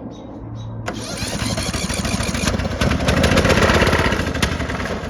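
Riding lawnmower's small engine being started: it turns over rapidly on the starter from about a second in, getting louder for a few seconds, then dies away near the end.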